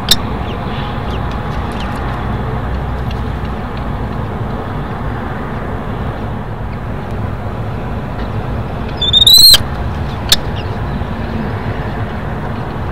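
A common kestrel gives a loud, shrill burst of calls about nine seconds in: a quick run of high notes lasting about half a second. Behind it is a steady low rumble, with a sharp click near the start and another just after the calls.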